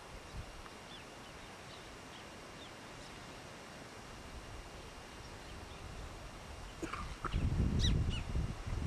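Birds calling with short chirps over a quiet waterside background, with a burst of louder calls near the end. From about seven seconds in, wind buffets the microphone with a low, uneven rumble.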